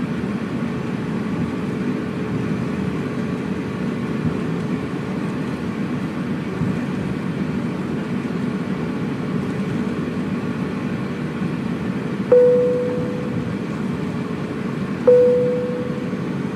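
Steady low rumble of cabin noise inside an Airbus A350-900 on the ground before takeoff. About twelve seconds in, and again about three seconds later, a single chime sounds and fades, the cabin chime that comes just before the takeoff announcement.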